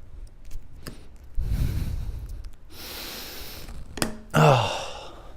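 A man breathing out heavily twice, then a short groan falling in pitch about four seconds in, the sound of straining to work a screw out of a car tyre; a couple of light clicks of a hand tool.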